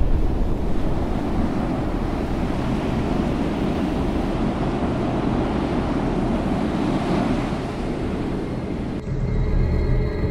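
Steady rushing wind noise on the microphone with water and boat sounds. About nine seconds in, it cuts abruptly to eerie music with held tones.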